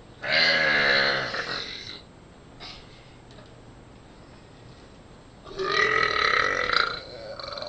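Two long, loud burps, each lasting about a second and a half, the second starting about five and a half seconds in.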